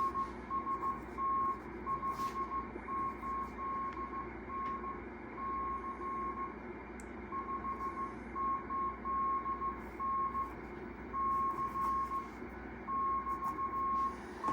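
Morse code (CW) signal on an amateur radio receiver: a steady tone of about 1 kHz keyed in dots and dashes, with one short pause about seven seconds in, over steady band hiss from the receiver.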